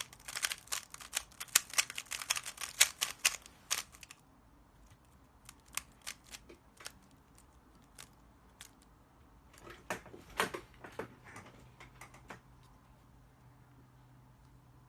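Rubik's cube being turned fast by hand: a dense run of plastic clicks as the layers snap round, for about four seconds. Scattered single turns and clicks follow, which die away about twelve seconds in.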